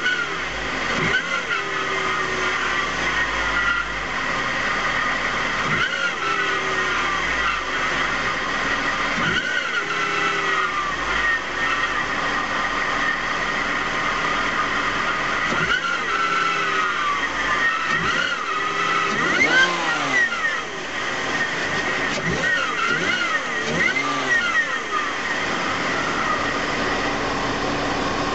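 BMW 325i E46 inline-six engine running and being revved repeatedly, its pitch rising and falling with each blip over a steady high whine. The title calls this an intake air noise problem.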